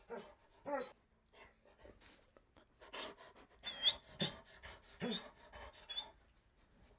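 A dog panting in quick, rapid breaths, with a few short whining cries mixed in, including a high thin whine about four seconds in.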